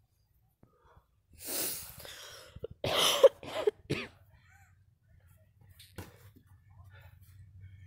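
A person close to the microphone makes a run of loud, breathy vocal bursts, the loudest a little past three seconds in. About six seconds in there is a single sharp slap as a boxing glove lands.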